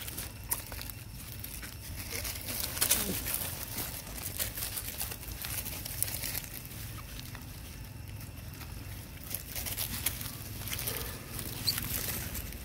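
Long-tailed macaques walking and scrabbling over dry leaf litter: scattered rustling and crackling of leaves.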